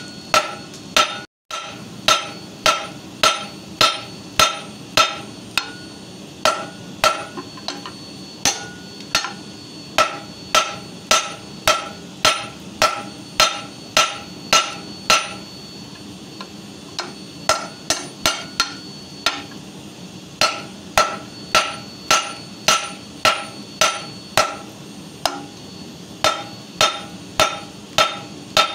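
Hand hammer striking a red-hot steel bar on a flat steel-plate anvil, about two blows a second, each with a short metallic ring, with a couple of brief pauses past the middle. The bar is being hammered on two sides to forge an offset tip.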